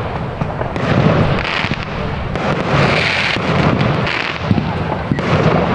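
Fireworks display going off in a continuous barrage of bangs and crackles, with no pause.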